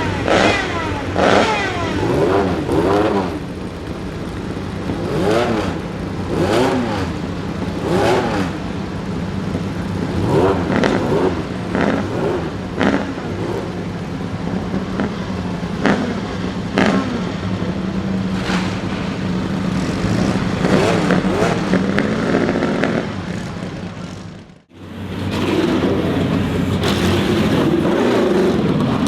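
1934 Mercedes-Benz W25's supercharged straight-eight engine idling with repeated sharp throttle blips, the pitch jumping up and falling back every second or two. The sound drops out briefly near the end, then the engine runs on with more revving.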